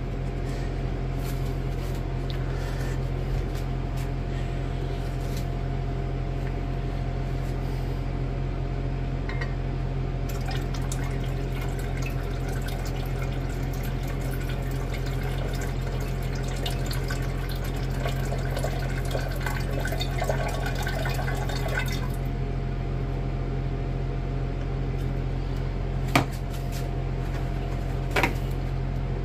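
Vacuum pump running with a steady hum while liquid is drawn through a vacuum filter, gurgling and trickling into the flask, busiest through the middle stretch. Two sharp clicks near the end.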